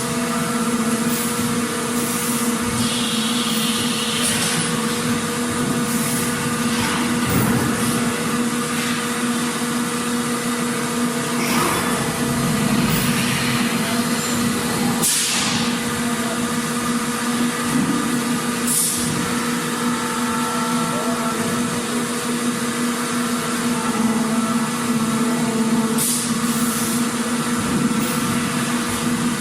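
Factory machinery running steadily: a constant hum with a low, even tone over a noisy mechanical bed, with a few short hisses about halfway through and again near the end.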